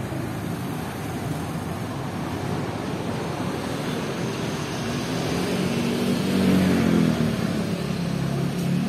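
An engine heard passing by over a steady rushing background, growing louder from about five seconds in and loudest around six to seven seconds before fading.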